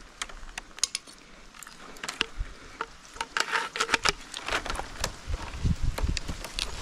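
Scattered clicks, knocks and short rustles as a palm climber handles rope, dry palm fronds and a coconut bunch at the top of a coconut palm. The sounds come irregularly, with no steady rhythm.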